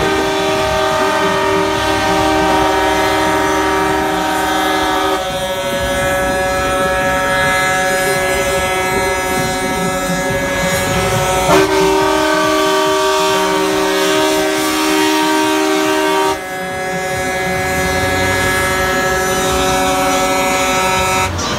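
Train-style air horns on dump trucks blowing long, held multi-note chords, the chord changing about five seconds in, again near the middle, and again about two-thirds of the way through, over the rumble of the trucks' diesel engines.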